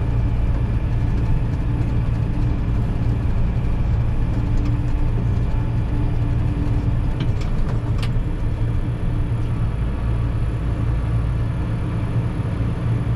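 Massey Ferguson tractor's diesel engine running steadily while driving in the high-speed ('rabbit') range, heard from inside the cab. Two light clicks come a little past the middle.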